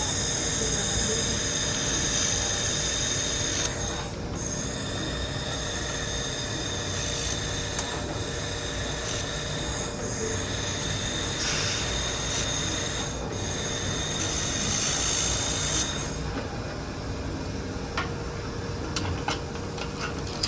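Handheld fiber laser welder (IPG LightWELD XR) welding thin aluminum at 820 watts: a steady high-pitched hiss and whine, broken briefly a few times between passes, that stops about three-quarters of the way through.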